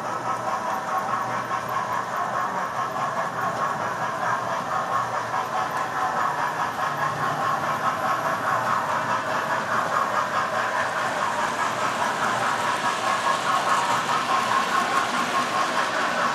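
Several model trains running on a model railway layout: a steady mechanical whir from their small electric motors and wheels on the track.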